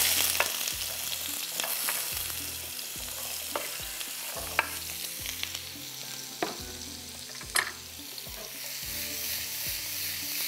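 Frozen sliced seekh kebabs sizzling in hot oil in a frying pan, starting suddenly and loudest as they hit the oil, then settling to a steady sizzle. A few sharp clicks and pops stand out. The ice on the kebabs makes the oil spit and smoke.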